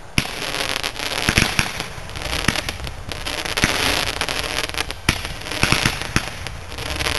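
A three-foot ground firework going off: surges of dense crackling come about once a second, with sharp pops among them.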